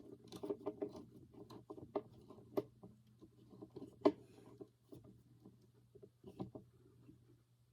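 Irregular light clicks and taps of longboard truck parts and hardware being handled during disassembly, with a sharper knock about four seconds in.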